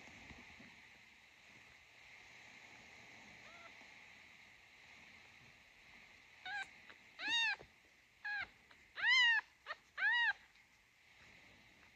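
A newborn kitten mewing: one faint cry a few seconds in, then about six short, high-pitched cries in quick succession in the second half, each rising and falling in pitch.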